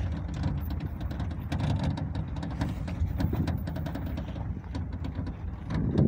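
Off-road motorcycle riding along a rough dirt trail: a steady low engine and road rumble with many small irregular knocks and rattles from the bumps.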